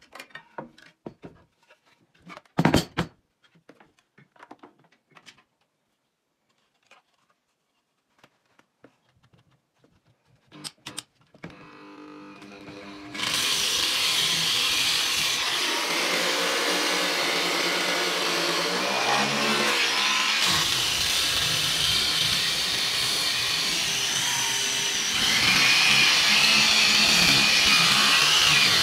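Knocks and clicks of handling, with one sharp knock about three seconds in. About twelve seconds in, an angle grinder fitted with a sanding pad and zip-tied into a wooden jig spins up and runs steadily at speed, getting louder near the end.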